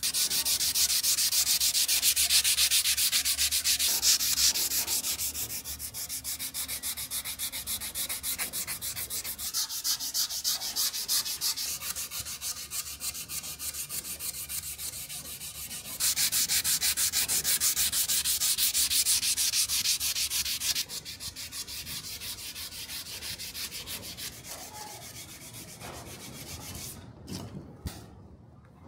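Hand sanding: abrasive rubbed in rapid, even back-and-forth strokes, in two louder bouts with quieter strokes between, stopping near the end.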